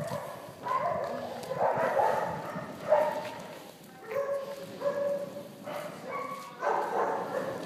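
Dogs barking and yelping repeatedly, in short calls about every half second with brief pauses between them.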